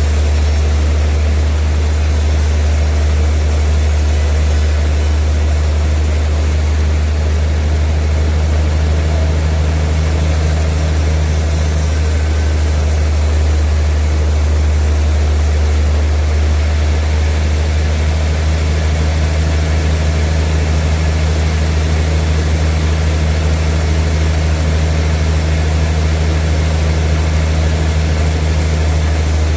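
Sawmill machinery running steadily with a loud, unchanging low hum and a hiss above it.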